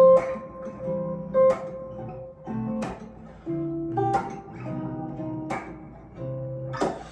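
Jazz guitar playing a slow chord progression: about six chords, each plucked with a sharp attack and left to ring for a second or so before the next.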